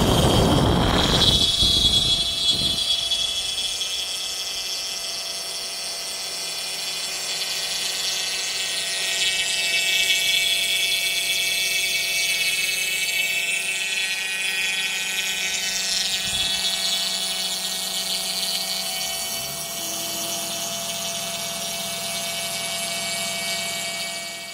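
CNC router spindle running at speed with a steady high-pitched whine as its end mill cuts into foam board. A louder rushing noise fills the first two seconds, then the whine settles.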